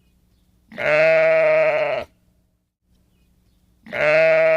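Sheep bleating: two long, steady bleats about three seconds apart, the second still sounding at the end.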